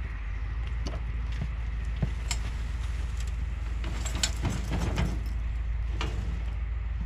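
Wheelbarrow load of compost pushed onto a wooden plank and tipped into a raised bed: a few clunks and knocks from the barrow, then compost sliding and spilling out of the tub about four to five seconds in, over a steady low rumble.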